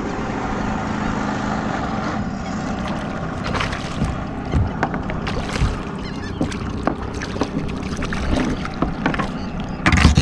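A hooked fish thrashing and splashing at the surface as it is reeled in to the side of a boat, in irregular splashes that grow busier, with the loudest splash near the end, over a steady background rush of wind and water.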